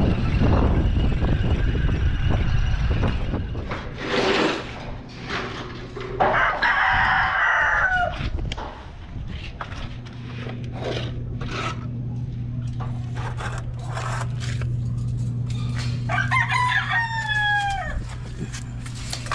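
Rooster crowing twice, about six seconds in and again near the end, each crow ending in a falling pitch. A rumble of wind and movement fills the first few seconds, and a steady low hum runs under the second half.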